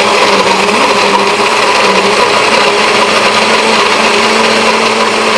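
Countertop blender running on high, blending ice and coconut water into a slush: a steady motor hum whose pitch rises a little about two seconds in.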